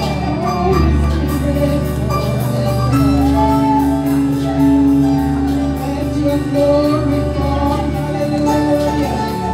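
Gospel praise-and-worship music: voices singing long held notes over a steady low musical accompaniment.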